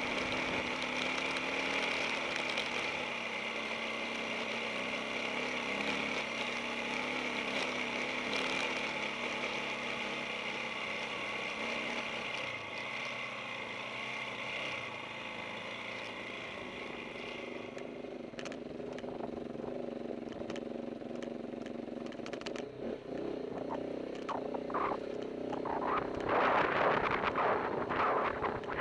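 KTM 690 Enduro R single-cylinder dual-sport motorcycle running steadily under way on a rocky dirt trail. In the last few seconds, rocks and gravel clatter under the bike, the loudest part of the sound.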